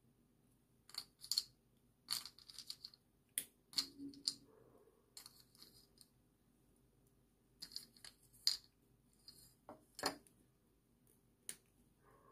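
Faint, scattered clicks and short rustles of chocolate chips being handled and dropped onto desserts in glasses, with a sharper click a little after ten seconds in.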